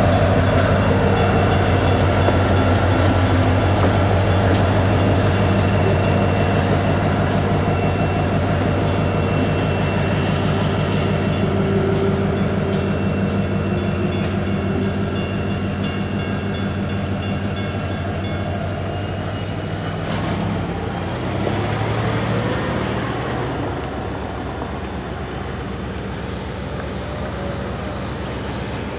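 Diesel-electric locomotive at the end of a BNSF coal train passing close by and pulling away, its engine a steady low drone that fades slowly as it recedes.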